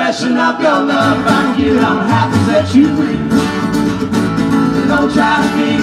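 Live string band playing an instrumental passage between verses: upright bass, strummed guitars and mandolin together at a steady tempo.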